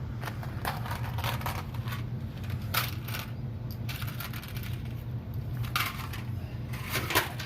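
Irregular crinkling and clicking as PEX plumbing parts and their packaging are handled and opened, a few sharp clicks scattered throughout, over a steady low hum.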